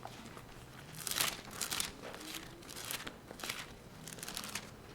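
Bible pages being turned: a series of soft paper rustles as the book is leafed through to the Psalms.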